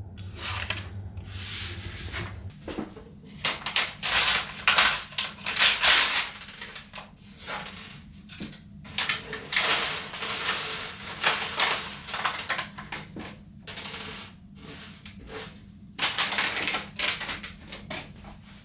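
LEGO pieces and their plastic packaging being handled: plastic bricks clattering and bags rustling in irregular bursts of a second or two.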